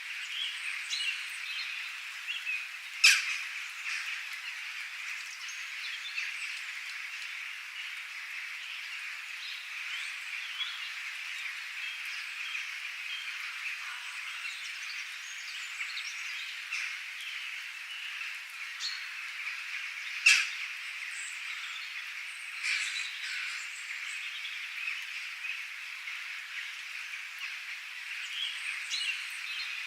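Wild birds calling over a steady high-pitched chorus: scattered short chirps, with two loud, sharp calls, one about three seconds in and one about twenty seconds in.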